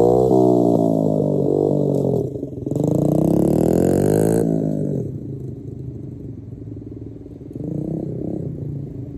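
Pit bike engine revving hard and shifting up as it rides past, its pitch climbing and dropping several times. After a short dip about two seconds in it revs up again, then fades away over the second half, with a brief faint rev near the end.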